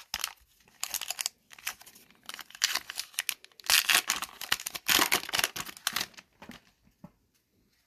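Foil wrapper of an Upper Deck hockey card pack being torn open and crinkled by hand: a run of crackling tears that is loudest around the middle and stops about six seconds in.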